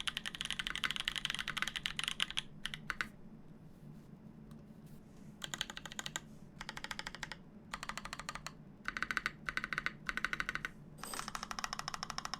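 Mechanical keyboard with lubed Gazzew Boba U4T tactile switches on a polycarbonate plate, with GMK keycaps, being typed on. A fast continuous run of keystrokes lasts about two seconds. After a pause of about two seconds, several short bursts of typing follow, separated by brief gaps.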